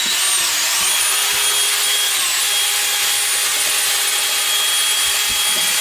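DeWalt cordless drill running steadily with a wire whisk in its chuck, whipping heavy cream in a bowl. Its motor whine dips slightly in pitch and recovers a couple of times as the trigger is eased.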